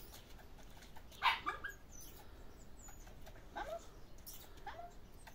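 A puppy whimpering and yelping in a few short cries that slide down in pitch, the loudest about a second in.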